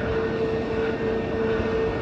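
Jet airliner engines running as the aircraft moves along the runway: a steady whine-like tone over a constant rush of engine noise.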